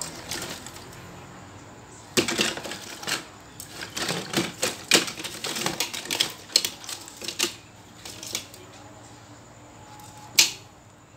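Small plastic computer cooling fans clattering and knocking together as a hand rummages through a basket of them: a run of clicks for several seconds, then one sharp click near the end.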